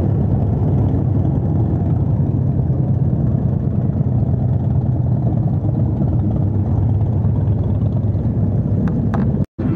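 Cruiser-style motorcycles riding slowly past in a line, their engines giving a steady, deep exhaust rumble. The sound cuts out for an instant near the end.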